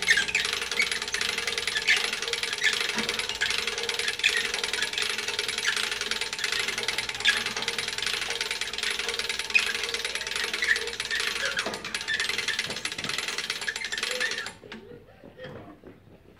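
A winch on the tow-axle frame running under load, a loud dense rattle with a steady hum, cutting off abruptly about fourteen seconds in; a few faint clicks and knocks follow.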